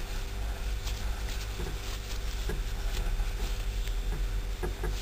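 Metal crochet hook working yarn through short (single crochet) stitches: faint, irregular small clicks and rustles over a steady low hum.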